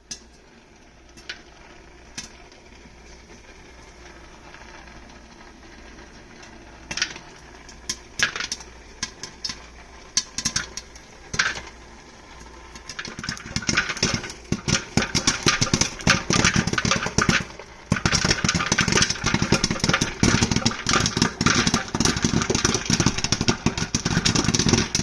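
Popcorn popping in a Presto Stir Crazy electric popper over a steady low hum from the machine. A few single pops come first, then from about halfway the popping turns rapid and continuous, the peak of the popping stage.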